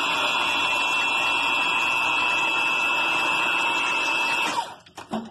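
Motor of a hydraulic pump unit running with a steady high whine. About four and a half seconds in it cuts off and winds down, followed by a few clicks.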